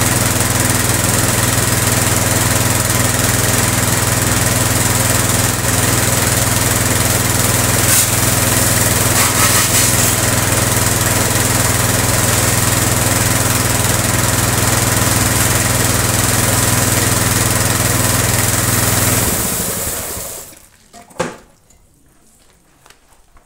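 Pressure washer running steadily, its motor-driven pump humming under the hiss of the water jet rinsing a scooter. The washer shuts off about twenty seconds in, followed by a single knock.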